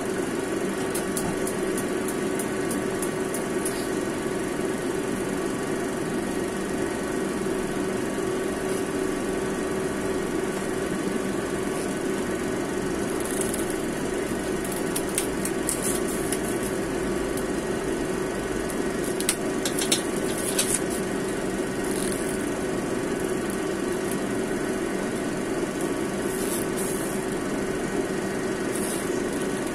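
Steady mechanical hum with a low tone throughout. Short hisses and crackles come and go as cooking oil is poured into a hot wok, first about halfway through and again near the end.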